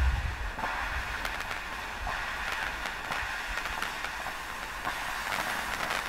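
Firework fountain burning, a steady hiss of spraying sparks with scattered small crackles.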